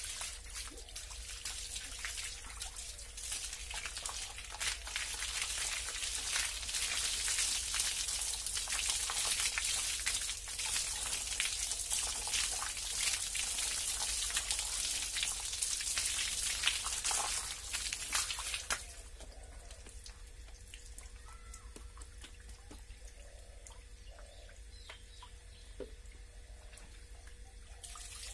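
Water from a hose splashing over a person's head and body onto the floor, a steady hiss of spray that stops suddenly about two-thirds of the way through, leaving it much quieter.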